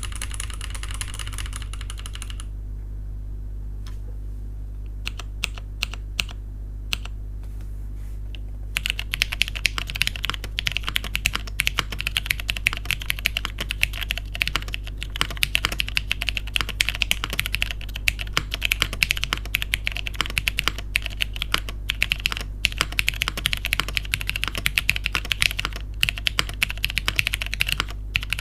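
Typing on a Neo80 mechanical keyboard with Cherry MX Purple tactile switches (lubed, filmed, spring-swapped), an aluminium plate, an O-ring mount and PBT keycaps. After a brief hiss at the start, a few scattered keystrokes come about five seconds in, then fast continuous typing from about nine seconds in.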